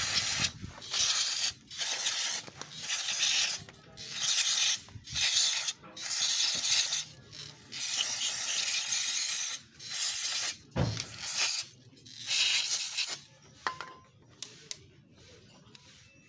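Aerosol cleaner sprayed onto a dirty engine part in about ten short hissing bursts, one held longer, stopping about thirteen seconds in. The cleaner washes black carbon and grime off the part.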